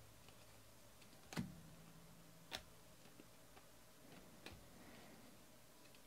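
Near silence broken by a few soft, sharp clicks about a second apart: Bowman baseball cards being flipped one by one through a hand-held stack.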